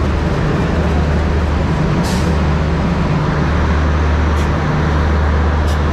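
Diesel locomotive engine idling close by: a loud, steady low hum. A short hiss comes about two seconds in.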